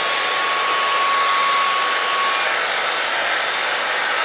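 Handheld hair dryer running steadily on long hair: a constant rush of air with a thin, steady whine from its motor.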